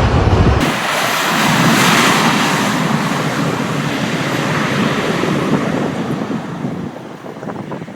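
Loud rushing hiss of an aircraft rolling out on a wet runway, water spray and air noise with no engine tone. The deep rumble drops out abruptly under a second in. The hiss is strongest about two seconds in and then fades toward the end.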